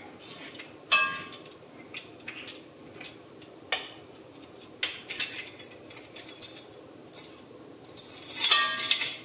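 Metal measuring spoon clinking against a glass spice jar and the rim of a stainless steel pot while spice is measured out: scattered light clinks, some briefly ringing, with a louder run of clinks near the end.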